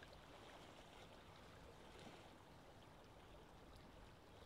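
Faint, steady wash of sea water, with a few light ticks.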